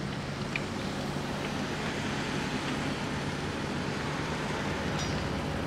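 Steady outdoor background noise with a low engine hum that fades out about halfway through, and a couple of faint, brief high chirps.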